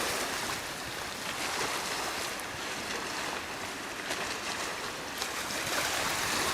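Wind noise on the microphone over small lake waves lapping, a steady rushing hiss with no distinct events.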